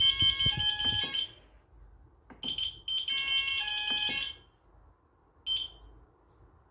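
Home fire alarm system sounding in short high-pitched bursts during a reset: a burst of about a second, a longer one of about two seconds, then a brief blip, with a few low knocks alongside the first burst.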